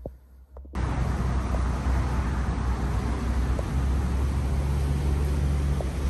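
Steady low road rumble of a moving vehicle, cutting in abruptly about a second in.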